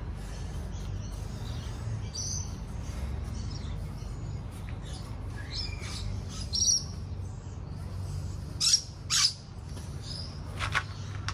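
Birds chirping in short, sharp calls every second or two, two of them louder near the end, over a low steady background rumble.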